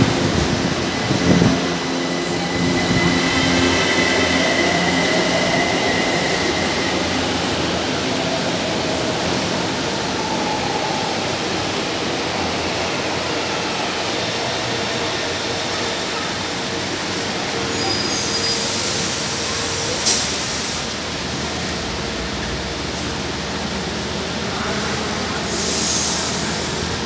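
São Paulo Metro trains in an underground station: a departing train's traction motors whine during the first several seconds, then a steady rumble as another train pulls in and brakes. Two short bursts of high hissing come late, one after the click about 20 seconds in and the other near the end.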